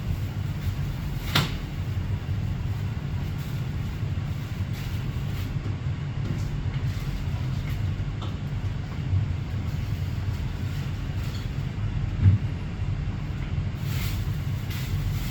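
Steady low engine rumble, with a sharp click about a second in and a louder knock near the end.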